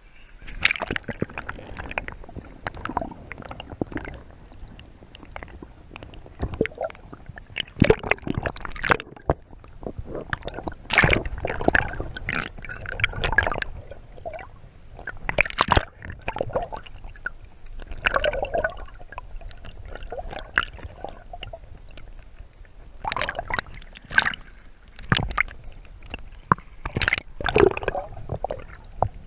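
Water splashing and sloshing around a kayak in irregular bursts, a few seconds apart.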